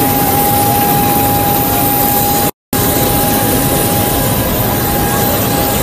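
Private jet's engines running with a loud, steady rush and a constant whine. The sound cuts out completely for a split second about two and a half seconds in.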